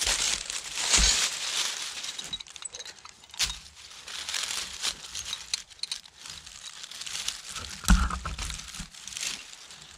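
Dry fallen leaves crackling and crunching as hands and a short digging tool work in the leaf litter to bed a dog-proof raccoon trap, with a few dull thumps into the ground about one, three and a half, and eight seconds in.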